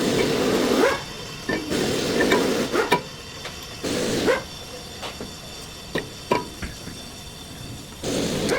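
Brake-job hand work: four bursts of scraping or hissing noise, with sharp metallic clicks and knocks in between.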